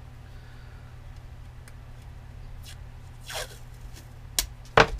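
Blue masking tape being pulled off its roll, a short rasping rip about three seconds in, followed by two sharp clicks near the end.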